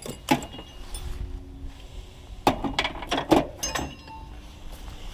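Metal hand tools clinking and clanking, with a handful of sharp knocks, a few of them ringing briefly.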